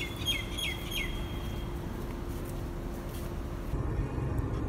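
A small bird chirps three quick descending notes in the first second over a steady low hum of outdoor background. Near the end this gives way to the low rumble of a car cabin.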